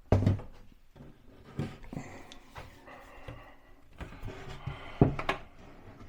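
Scattered knocks and clicks from handling a kitchen wall-cabinet door and its hinges. The loudest knock comes right at the start, and there is a sharp click about five seconds in.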